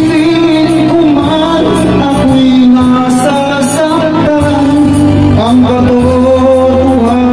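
Ballad music, with a voice singing a held, sliding melody line over a backing track.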